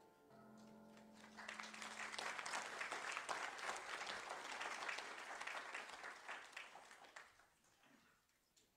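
A song's last piano chord rings out, then the congregation applauds for about six seconds, the clapping tapering off near the end.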